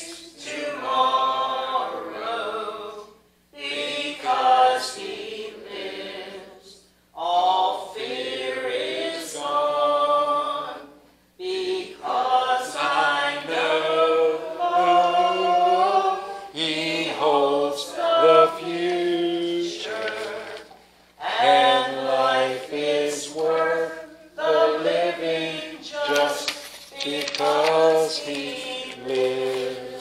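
Unaccompanied (a cappella) hymn singing in phrases of a few seconds, with short breaks between them.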